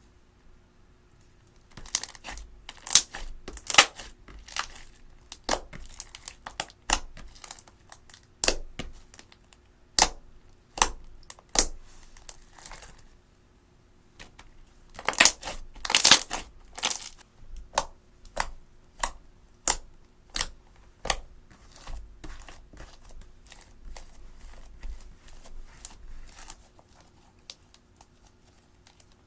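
Slime being worked by hand, giving off irregular sharp crackling pops and clicks that pause briefly near the middle and bunch up just after.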